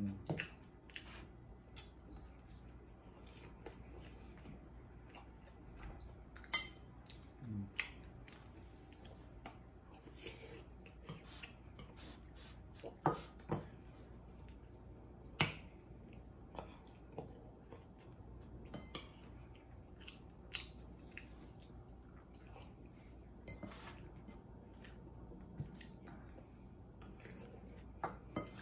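Metal fork and spoon clinking and scraping against a ceramic bowl while eating, in faint, scattered sharp clicks a second or several apart, with quiet chewing.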